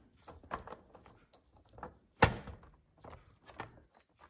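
Plastic clicks and knocks of an AC power cord plug being worked into a projector's power inlet, with one sharp click a little over two seconds in.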